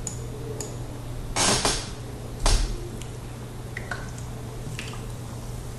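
Room tone: a steady low hum and hiss, with a few light scattered clicks and two louder brief noises about one and a half and two and a half seconds in.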